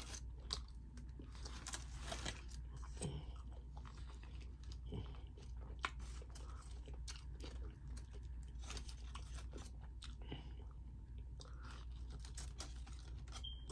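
A person chewing a taco, with scattered small clicks and soft crunches.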